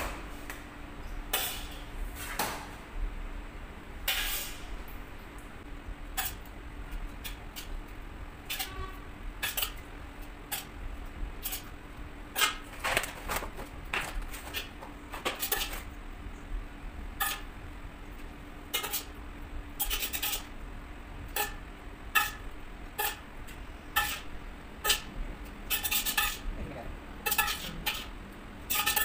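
Metal spoon clinking and scraping against a large stainless-steel pot and steel baking trays in irregular clinks, some ringing briefly, as filling is spooned onto stuffed eggplants and the trays are shifted. A steady low hum runs underneath.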